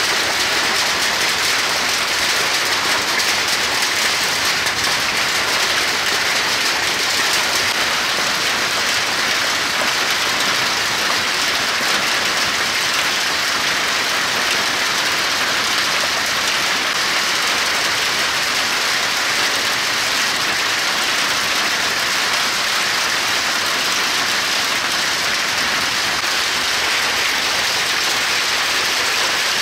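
Large hail pounding the pavement in a heavy hailstorm, a dense, steady clatter of countless impacts.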